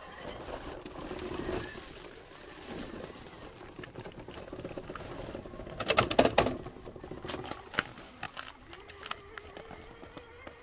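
Element RC Enduro Trailrunner 1/10-scale crawler creeping up a boulder, its electric motor and drivetrain giving a faint steady whine while the tyres scrabble and scrape over rock and dry leaves. A burst of sharp clicks and scrapes about six seconds in is the loudest moment.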